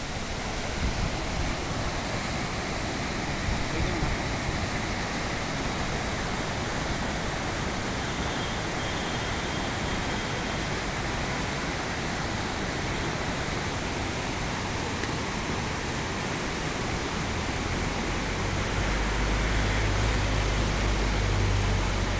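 Rocky river rushing over boulders in white-water rapids: a steady, even rush of water. A deeper low rumble swells in over the last few seconds.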